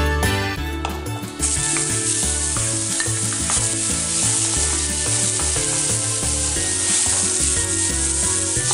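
Diced onion sizzling in hot oil in a non-stick pan as it is stir-fried with a wooden spatula. The sizzling starts suddenly about a second and a half in.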